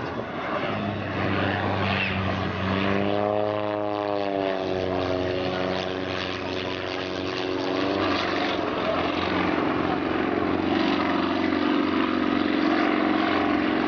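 Su-26 aerobatic monoplane's nine-cylinder radial engine and propeller running hard in flight as the plane climbs. A droning tone wavers in pitch for a few seconds in the middle, then the sound settles into a steady drone.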